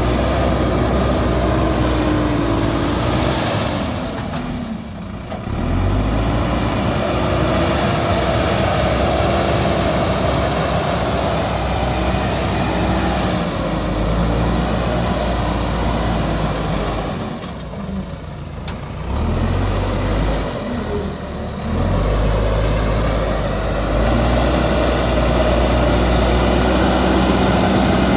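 JCB backhoe loader's diesel engine running hard while working, its note easing off briefly three times, about five, eighteen and twenty-one seconds in, before coming back up.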